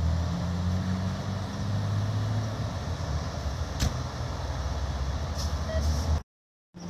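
Large vehicle engine idling, a steady low rumble, with one sharp click about four seconds in. The sound drops out briefly near the end.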